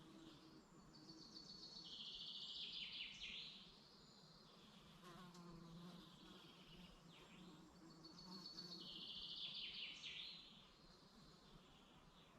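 A songbird sings, faint and distant, two phrases of rapid trills about six seconds apart. Each phrase steps down in pitch and ends in a quick falling flourish.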